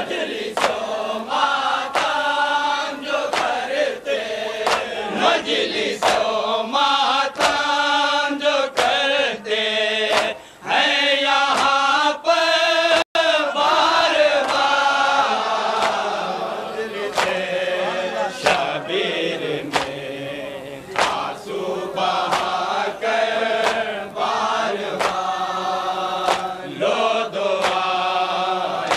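Men chanting a Muharram nauha together in long melodic lines, over sharp regular strikes of matam, hands beating on chests, about one to two a second. The audio cuts out for an instant about halfway through.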